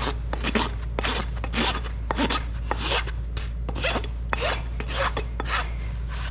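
Steel hoof rasp filed in quick, even strokes across a pony's barefoot hoof, about three strokes a second: a quick finishing pass over the whole hoof during a barefoot trim.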